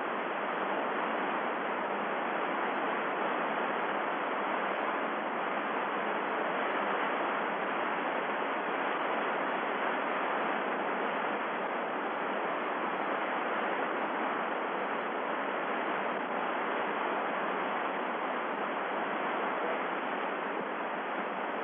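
Steady radio static hiss on the spacecraft's HF air-to-ground channel, with no voice on it.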